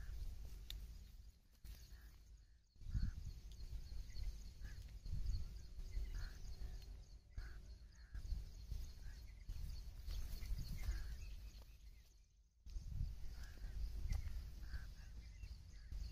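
Wind buffeting the microphone in gusts in an open field, dropping away abruptly twice, with a steady high hiss and scattered faint bird chirps.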